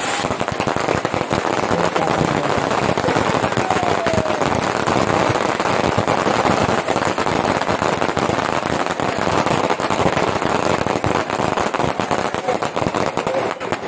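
Firecrackers going off in a dense, unbroken crackle, many pops a second.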